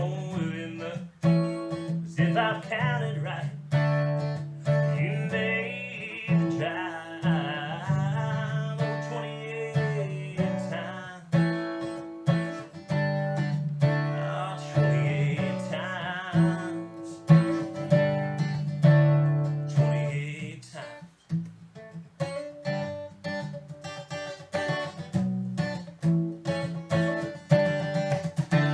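Acoustic guitar played solo in a country song's instrumental outro, picked and strummed chords throughout.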